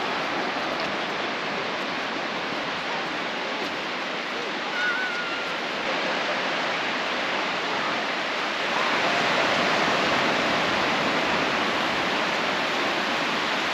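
Steady rushing wash of sea surf breaking on the shore, an even noise without pauses.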